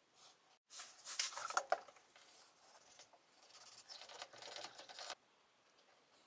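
Carving knife scraping and shaving fine wood from a small carved wooden ring: a quick run of short, scratchy cuts. It starts abruptly about a second in, is loudest soon after, and stops suddenly about five seconds in.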